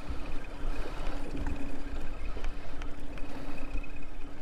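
Wind rumbling on the microphone and choppy water lapping against a fishing boat's hull, over a steady low hum and a few light clicks.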